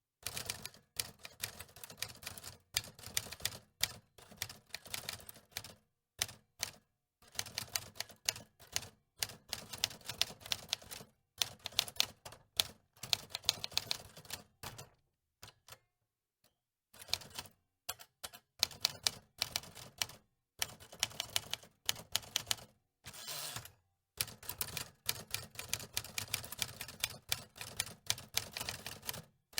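Manual typewriter being typed on: runs of rapid key strikes in bursts of a few seconds, broken by short pauses and a longer pause about halfway through.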